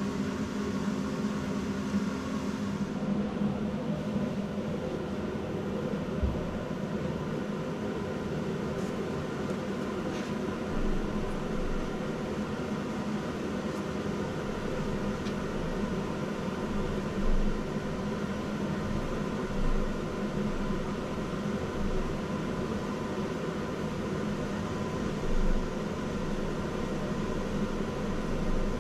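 Steady mechanical hum of running machinery, with a few dull low thumps about 11, 17, 20 and 25 seconds in.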